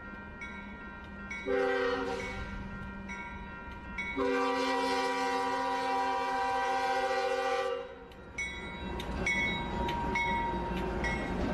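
Garden-railway model locomotive's sound unit sounding a multi-tone horn: a short blast, then a long blast of about three and a half seconds. After that comes the rumble and clicking of the model train running along the track.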